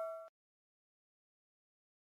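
The tail of a notification-bell chime sound effect, a few steady ringing tones dying away and cut off abruptly about a quarter second in, then dead digital silence.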